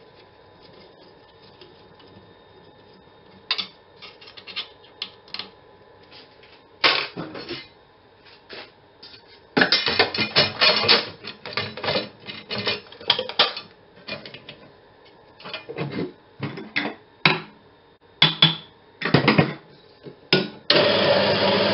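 Irregular clicks, taps and clatter as a small band saw's new blade and upper wheel are handled and adjusted, some in quick clusters. Near the end a steady loud noise starts suddenly and keeps going.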